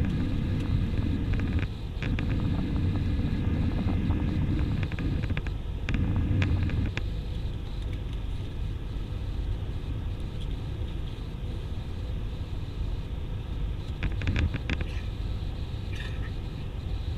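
Airbus A320 cabin noise: a steady drone of engines and airflow with fixed tones. Heavier low rumble comes in stretches through the first seven seconds, and there are a few light clicks.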